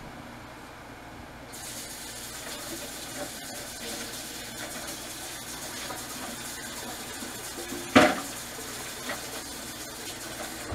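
Water running from a kitchen tap into the sink as a steady hiss, starting about a second and a half in and cutting off near the end. A single sharp knock about eight seconds in is the loudest sound.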